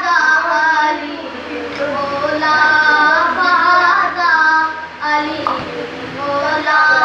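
A boy singing a manqabat unaccompanied, in long held, wavering notes broken into phrases, with a short breath about five seconds in.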